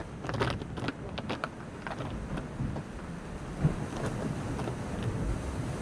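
Wind noise on the microphone, a steady low rush, with a few light clicks in the first second and a half and a single knock a little past halfway.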